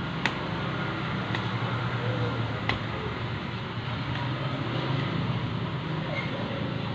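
Steady low background rumble like road traffic, with three short sharp clicks in the first three seconds.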